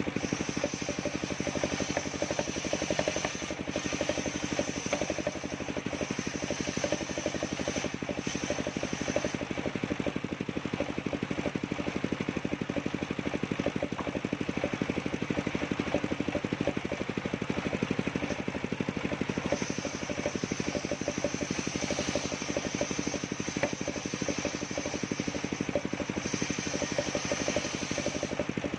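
Engine of a portable circular-saw sawmill running steadily with a fast, even beat. A high whine sounds over it for long stretches, dropping out for a while in the middle and coming back.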